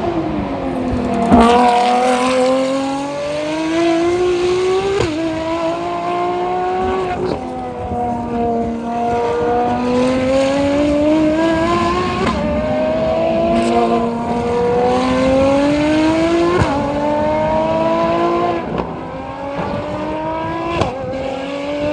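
Ferrari track car's high-revving racing engine accelerating hard through the gears: the pitch climbs steadily and drops sharply at each of several upshifts.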